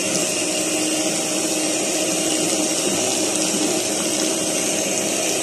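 Electric hand mixer running steadily at a constant speed, its beaters whipping egg whites and sugar into meringue in a plastic bowl.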